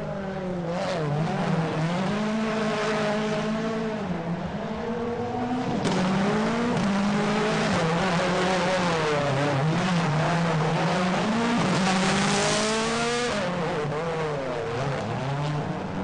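Ford Fiesta RS WRC rally car's turbocharged 1.6-litre four-cylinder engine revving up and down again and again as the car drifts, with tyre squeal. The revs and tyre noise climb to their loudest about three-quarters of the way through, then drop away.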